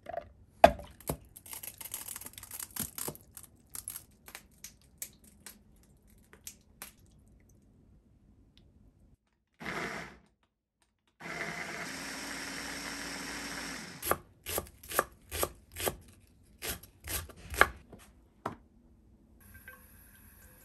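Pieces of ginger and other ingredients clattering into the plastic bowl of a small electric food chopper. Then the chopper's motor runs: a short burst, a steady run of about three seconds, and a string of about ten quick pulses as it minces the contents.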